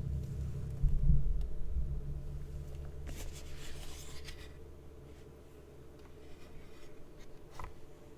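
Keystrokes on a 65% mechanical keyboard with an aluminium plate and lubed, filmed Gateron Milky Yellow linear switches. The clicks are scattered, with a denser run about three to four seconds in and a single sharper stroke near the end.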